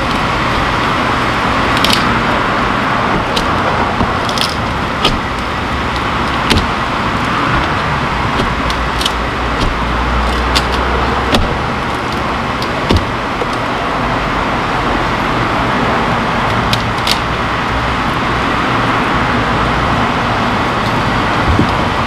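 Bee vacuum, a shop-vac motor, running steadily with a constant rushing whir, broken by scattered sharp ticks.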